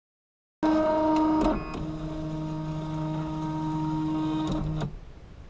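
3D printer's stepper motors whining as the print head and bed move during a print: steady pitched tones that start just after the beginning and drop to a quieter, lower tone about a second later. They stop suddenly about a second before the end.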